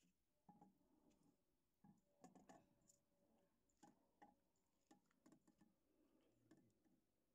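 Faint, irregular clicks and light metallic knocks from hands fitting the differential gears and taper bearing of a HAMM 311 roller's axle into their housing.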